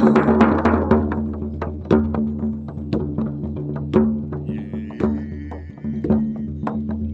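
Hand drums being struck, a quick run of beats easing to about one beat a second, over a steady low ringing hum. A brief wavering high tone sounds about halfway through.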